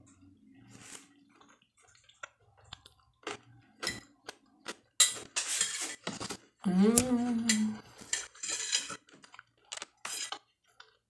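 Metal fork clinking and scraping against a glass plate, between bouts of close-up chewing of food. A short hum of the voice comes about seven seconds in.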